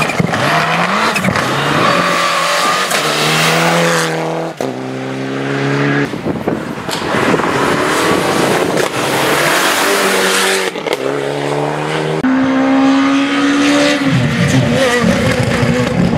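Rally car engine at full throttle, its pitch climbing and then dropping back at each upshift, with loud rushing noise as the car passes.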